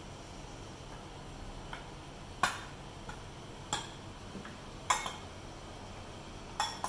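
Metal spoon clinking against a glass bowl while stirring a dry crushed-biscuit mix. There are four sharp clinks at uneven spacing, a second or so apart, with fainter taps between them.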